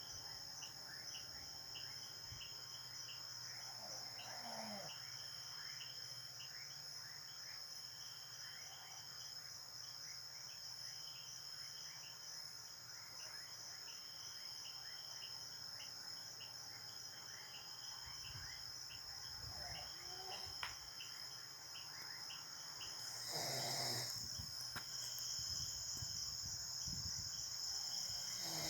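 A sleeping person snoring in slow, irregular breaths: a few separate snores, the loudest about two-thirds of the way through. Steady high insect chirping runs underneath.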